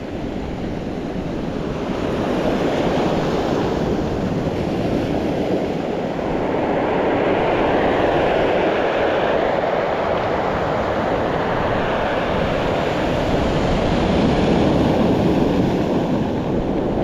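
Sea surf breaking and washing up a cobble beach: a steady rush that swells and eases with each wave.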